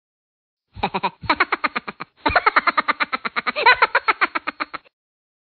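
An edited-in sound effect: a warbling, voice-like sound chopped into fast even pulses, about nine a second, in two stretches with a brief break about two seconds in, starting and stopping abruptly.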